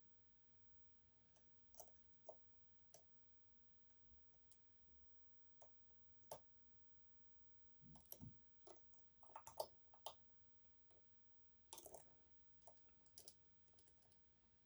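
Faint, irregular metallic clicks of a short flat hook pick and tension wrench working the unsprung sliders inside an EVVA 3KS high-security lock cylinder, with several clicks close together past the middle.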